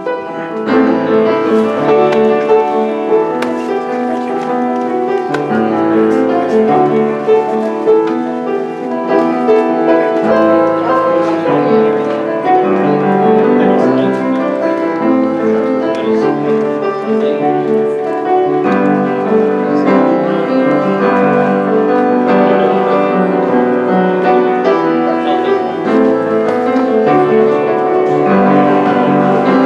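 Piano playing a hymn tune as a postlude, with steady chords and melody.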